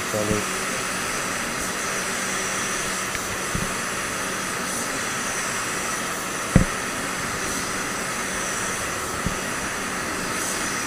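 Gravity-feed paint spray gun hissing steadily with compressed air as a coat of paint is sprayed in a spray booth. A few low thumps cut through, the loudest about six and a half seconds in.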